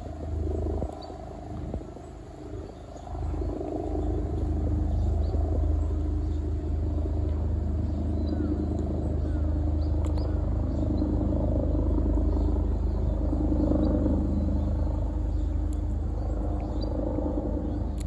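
Steady low mechanical hum and rumble with a few fixed low tones, getting louder about four seconds in, with a few faint high chirps above it.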